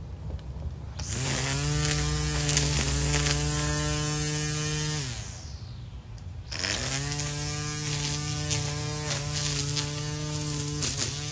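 Cordless 40V string trimmer's electric motor spinning up with a rising whine and running steadily, winding down about five seconds in, then spinning up again about a second and a half later and running on. Scattered sharp ticks come through in the second run.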